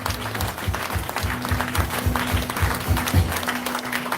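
Music with a fast, even drum beat of about four beats a second and a held note, with people clapping along. The beat stops a little over three seconds in.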